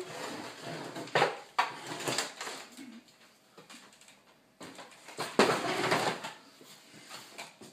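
Plastic and metal parts of a Dell PowerVault PV-122T tape autoloader clattering and knocking as they are handled. A louder spell of clatter comes around five seconds in, as the autoloader's upper assembly is set down onto its chassis.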